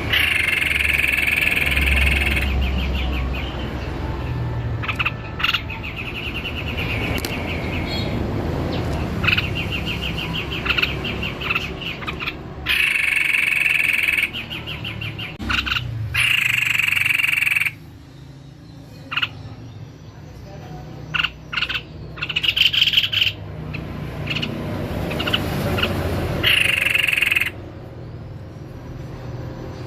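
White-necked babbler (tepus leher putih) singing: repeated bursts of fast, trilled notes, each lasting a second or two, over low steady background noise.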